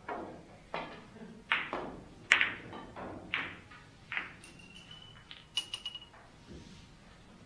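Billiard balls knocking against each other and the cushions during play on a keglebillard table: a series of sharp clacks about one every second, the loudest a little over two seconds in. Past the middle comes a quick cluster of lighter clicks with a brief high ringing tone.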